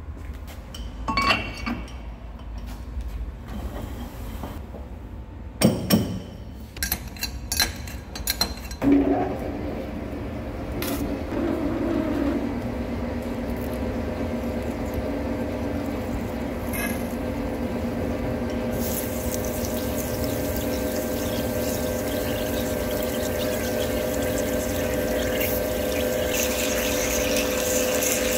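Clunks as the lathe tailstock is slid and locked into place. Then the centre lathe runs with a steady hum while a large twist drill bores into the solid 38MnVS6 steel bar, with a hiss of flood coolant and cutting growing over the last several seconds.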